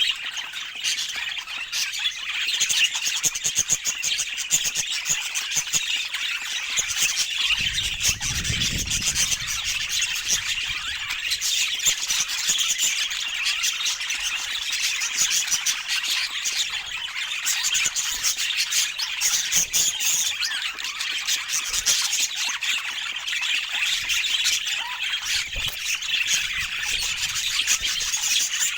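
A flock of budgerigars chattering without pause, a dense mix of rapid warbling chirps and squawks. About eight seconds in, a low rumble lasts for about two seconds underneath.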